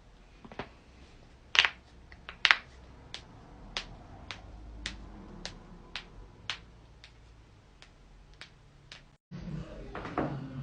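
Joints cracking: two loud pops in the first few seconds, then a string of fainter pops about every half second.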